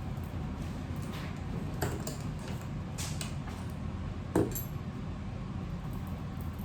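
A few light clicks and taps of small hard tools or parts being handled on a work surface, the sharpest about four seconds in, over a steady low hum.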